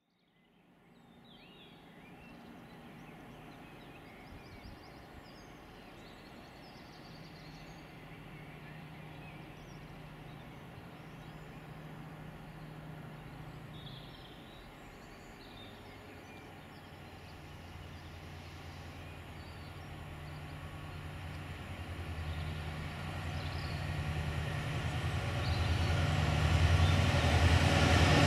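Class 68 diesel-electric locomotive, with its V16 diesel engine, approaching under power: a low engine drone that grows steadily louder as it nears. A few high chirps come through in the first half.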